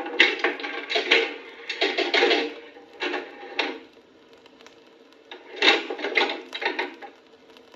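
Bursts of mechanical clicking and clattering from a coin-operated machine, such as a pintable, fruit machine or vending machine, with a short lull in the middle.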